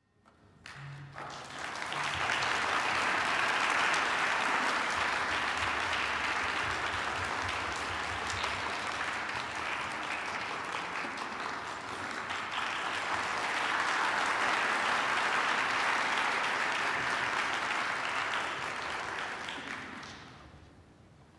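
Audience applauding. The clapping swells up over the first couple of seconds, holds steady, and dies away near the end.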